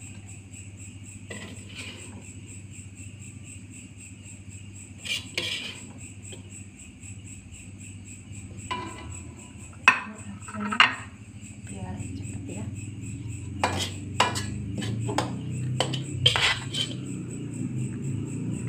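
A long metal spatula clinks and scrapes against an aluminium wok and a ceramic plate as fried tempeh is scooped out and served. The knocks are scattered at first and come thicker in the second half. A steady high-pitched whine and a low hum run underneath.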